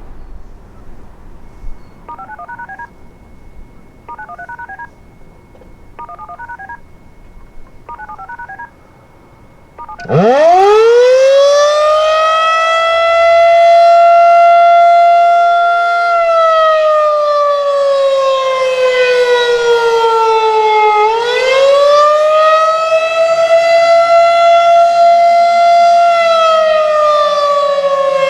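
Federal Signal 2001 Roundback outdoor warning siren winding up sharply about ten seconds in, then wailing: its pitch holds, falls slowly, climbs back and falls again, the rise-and-fall of the attack signal. Before it starts, faint short beeping tone bursts come about every two seconds.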